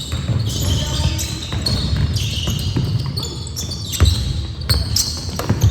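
A basketball game on a hardwood gym floor: the ball bounces and dribbles in repeated thumps, and sneakers squeak in short, high chirps, with a couple of sharper knocks about four and five and a half seconds in.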